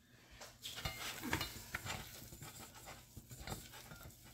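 Silicone-coated whisk stirring a thick flour-and-butter roux in a stainless steel saucepan: faint, soft scraping with a few light ticks.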